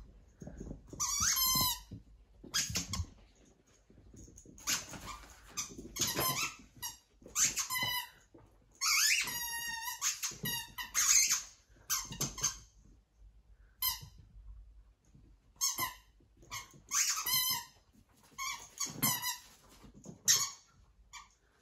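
Rubber squeaky ball toy squeaking over and over as a miniature dachshund puppy bites and chews it: short, high squeaks coming irregularly every second or two, some wavering in pitch.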